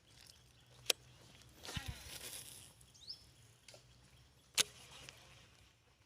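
A fishing cast: a swish of rod and line with a reel spool whirring and slowing about two seconds in, between two sharp clicks of the reel.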